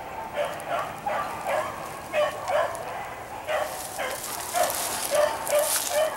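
Rabbit beagles baying on a rabbit's trail: a steady string of short, repeated bawls, about two a second. A hissing rustle joins them from a little past halfway to near the end.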